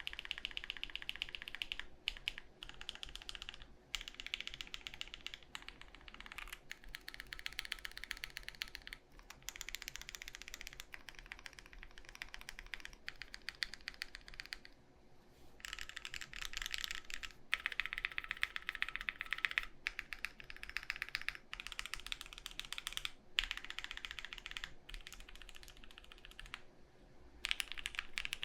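Continuous typing on a plateless custom mechanical keyboard with foam inside and linear switches, in runs of fast keystrokes broken by short pauses. A faint steady fan hum lies underneath.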